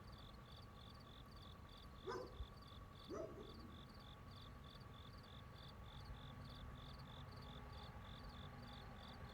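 Crickets chirping faintly in an even rhythm, about two and a half chirps a second, over a steady thin hum. Two short, louder animal calls break in about two and three seconds in.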